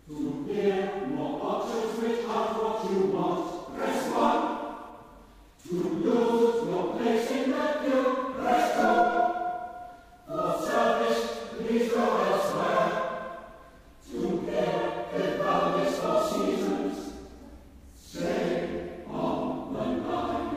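A modern madrigal sung in several vocal parts, setting phone-menu prompts such as "to lose your place in the queue, press 2". It comes in five phrases with short breaks between them.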